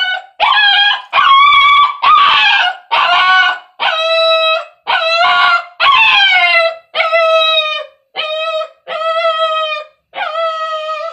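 Dog crying out while being bathed in a sink, so loud. It gives a run of pitched cries under a second each, about one a second, some sliding down in pitch.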